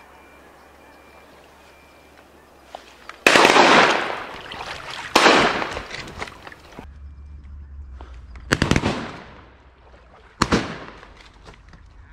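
Four shotgun shots, in two pairs about two seconds apart, each fading out over about half a second; the first is the loudest.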